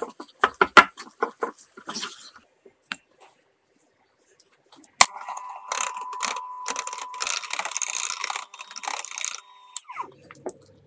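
A silicone spatula scrapes and knocks against a saucepan as dough is stirred, in a quick run of clicks over the first two seconds. About five seconds in, an electric hand mixer clicks on and runs with a steady whine, its beaters churning dough in a glass bowl, and it stops shortly before the end.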